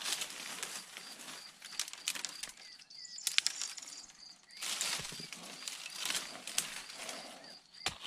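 Dry brush and twigs rustling and snapping as growth is cleared around a rock, with one sharp strike of a small hand pick into the ground near the end. A faint, regular high chirping runs underneath.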